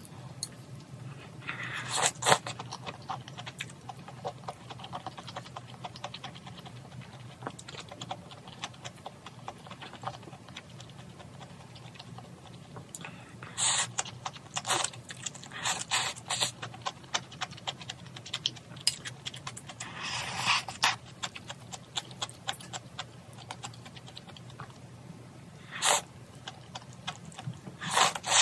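Close-up eating sounds: noodles slurped in short bursts and chewed, with light clicks of chopsticks against a ceramic bowl, over a low steady hum.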